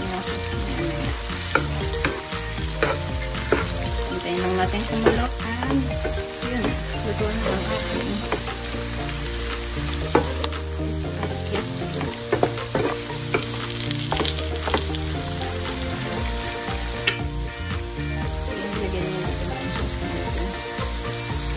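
Sliced hot dogs and ground pork sizzling in oil in a nonstick frying pan, stirred with a wooden spatula that scrapes and taps against the pan.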